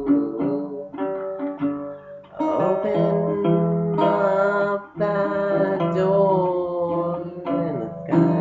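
Acoustic guitar music, plucked and strummed chords with held notes, pausing briefly about two seconds in and again near the middle.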